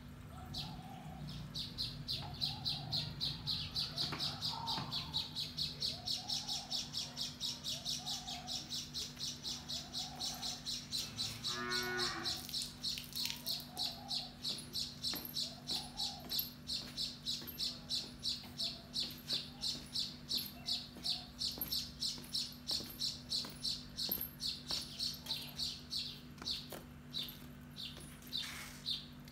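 Birds calling: a high chirp repeated steadily two or three times a second, with a lower call about once a second and a steady low hum behind.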